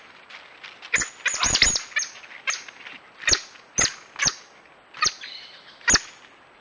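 Coati giving a series of short, sharp, high-pitched chirps, about a dozen at irregular intervals, several bunched together about a second in.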